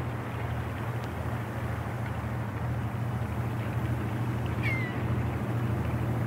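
Steady low drone of a river boat's engine running. A single short, high, falling chirp cuts in about three-quarters of the way through.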